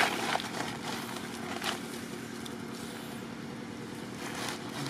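A motor vehicle engine running steadily as a low hum, with a few short clicks in the first two seconds.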